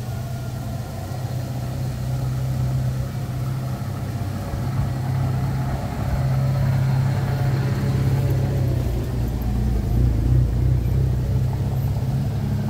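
Cars driving slowly past at close range on a cobblestone street, with a steady low engine hum and tyre rumble. It grows louder about halfway through as a car comes alongside and stays loud as a second vehicle follows.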